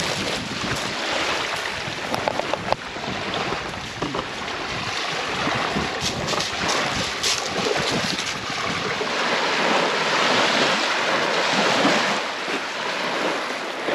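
Small waves washing onto a gravel lakeshore, with wind buffeting the microphone throughout.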